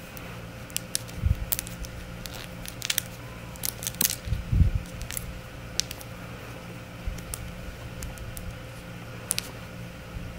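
Crocheting by hand: scattered light clicks of long fingernails and a plastic crochet hook tapping together as the hook works through yarn, with two soft low bumps about one and four and a half seconds in. A steady low hum runs underneath.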